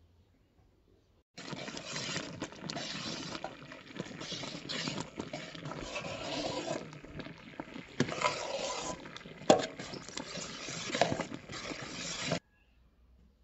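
Kitchen handling sounds: about eleven seconds of rustling and scraping with scattered sharp clicks and knocks, the loudest a little after halfway. The sound starts and stops abruptly.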